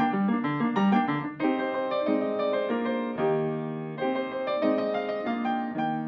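Background music on piano: a melody of single notes over changing chords.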